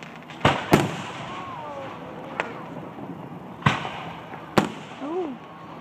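Aerial fireworks shells bursting overhead: five sharp bangs, two in quick succession about half a second in, a fainter one in the middle, then two more about a second apart near the end.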